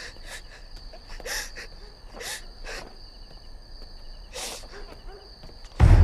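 Crickets chirping in a steady high trill under a few soft, scattered footsteps. Near the end a sudden loud, low boom hits and keeps ringing.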